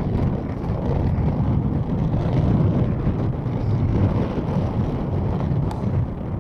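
Strong wind buffeting the microphone: a loud, low, unsteady rushing noise that swells and eases.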